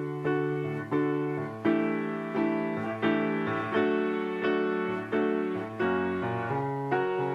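Solo piano playing a run of chords, a new chord struck a little faster than once a second and left to ring and fade before the next.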